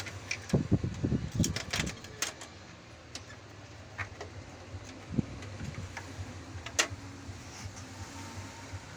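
Clicks and knocks from handling the parts of an opened electronic keyboard: a quick run of knocks in the first two seconds, then a few single clicks further apart.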